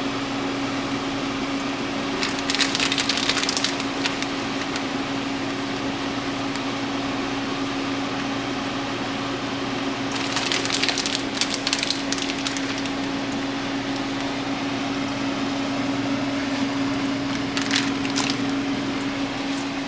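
A steady hum under a faint even hiss, broken three times by short bouts of crackling.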